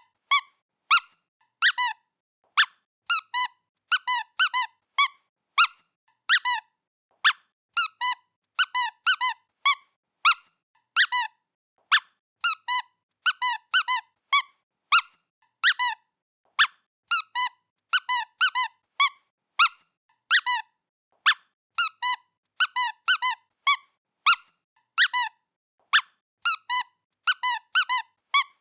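Squeaky toy being squeezed over and over as a cat plays with it: short, high squeaks, singly or in quick twos and threes, with silence between them.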